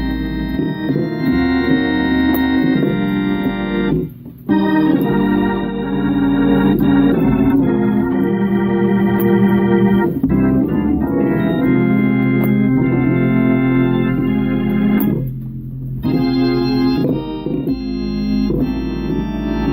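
Organ playing gospel music: held chords with a bass line underneath. The upper notes drop out briefly about four seconds in and again near sixteen seconds.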